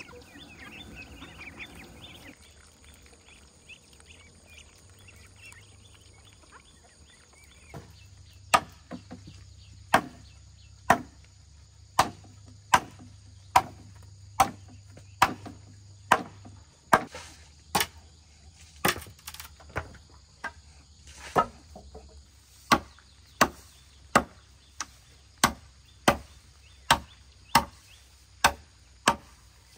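Steady chopping with a blade, one sharp strike a little more often than once a second, beginning about a quarter of the way in. Before the chopping starts there is only a faint insect hum.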